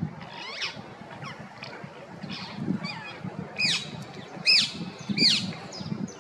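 Female rose-ringed parakeet calling: a string of short, harsh, arching screeches. The three loudest come less than a second apart in the second half.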